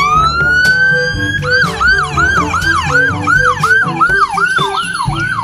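Ambulance siren: one rising wail, then a fast yelp from about a second and a half in, at roughly two and a half cycles a second.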